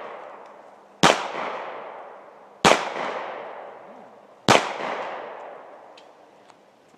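Three pistol shots from a Glock .40 caliber handgun, a little under two seconds apart, each followed by a long echo that dies away.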